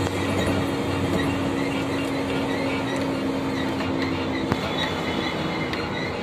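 Inside a moving road vehicle: steady engine and road noise with a low hum, light rattling clicks and one sharper click about four and a half seconds in.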